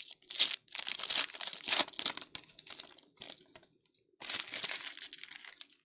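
Trading card pack wrapper being torn open and crinkled, in two bouts of rustling with smaller crackles between.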